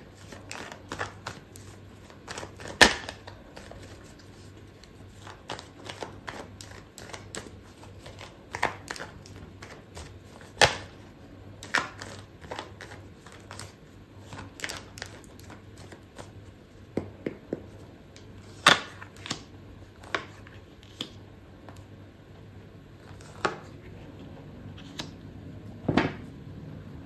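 Tarot cards being shuffled by hand: a continual run of soft card flicks and slides, with a few sharper snaps of cards scattered through. Clarifier cards are drawn and laid face down on the table.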